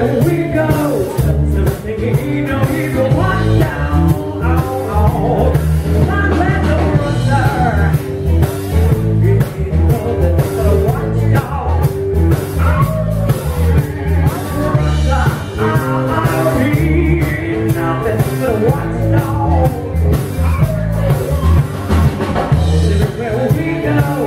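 Live blues-rock band playing: electric bass, electric guitar and drum kit keeping a steady beat.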